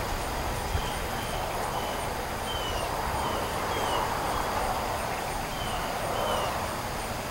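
Breezy wind rushing through a tree's leaves and buffeting the microphone with a low rumble, as a tropical storm approaches. A bird gives a short chirp every second or so.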